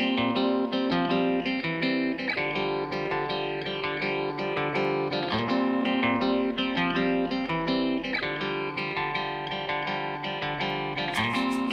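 Instrumental music led by a plucked string instrument, quick repeated notes over sustained chords.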